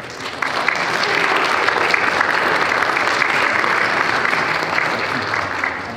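Audience applauding: a dense, steady clapping that swells up about half a second in and fades near the end.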